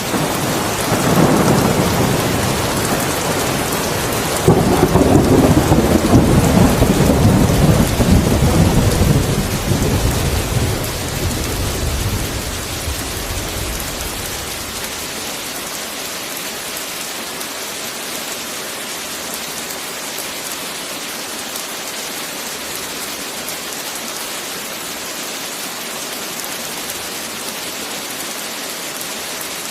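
Heavy rain falling steadily, with a long thunder rumble. The rumble begins right away, is loudest about five to nine seconds in, and dies away by about halfway, leaving the rain alone.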